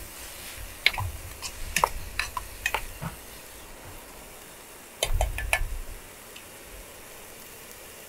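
Cooking utensil clicking and scraping against a camping frying pan as frying food is stirred, over a faint steady sizzle. The clicks come in two clusters, from about a second in to three seconds, and again around five seconds.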